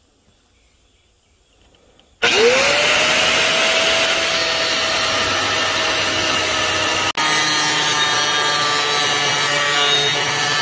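Angle grinder with a cut-off disc starting up about two seconds in, its whine rising quickly as the motor comes up to speed, then cutting into a steel saw blade with a steady, harsh grinding noise. The sound breaks off for an instant about seven seconds in, then carries on.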